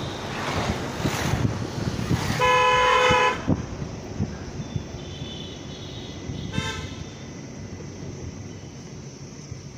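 A vehicle horn sounds one long honk of about a second, then a second, shorter honk a few seconds later, over the steady road and wind noise of a moving car.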